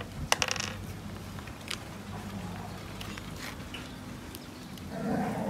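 Metal livestock ear tattoo plier being loaded with digit blocks: a sharp cluster of metallic clicks about half a second in, a single click near two seconds, then fainter handling ticks. Near the end a short animal call.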